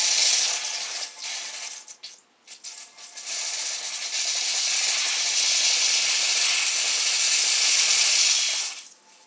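Water under pressure hissing out of the loosened copper pressure-line fitting on a jet pump's pressure switch, with the pressure tank not yet drained. Two stretches of hiss: a short one, then after a brief break a longer one of about six seconds that stops sharply.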